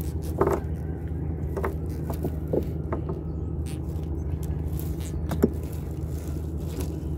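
A boat engine running steadily at a low, even hum, with light scattered clicks and scrapes of a nylon gill net being handled as fish are picked out of it.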